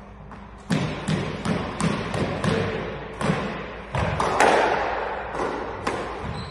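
Squash rally: the ball struck by racquets and hitting the walls, a quick series of sharp echoing thuds, about two or three a second.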